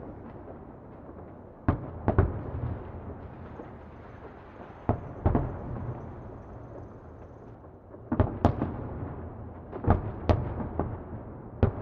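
Distant fireworks exploding: sharp bangs at irregular intervals, some in quick clusters, over a continuous low rumble of echoing booms.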